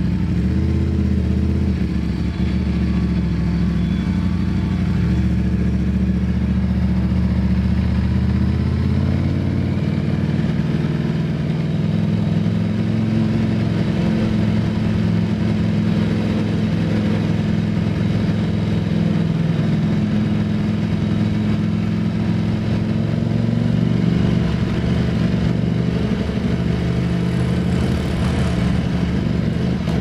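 2022 Ducati Streetfighter V4S's 1103 cc V4 engine running at low revs while the bike cruises slowly, the engine note shifting in pitch a few times as the revs change.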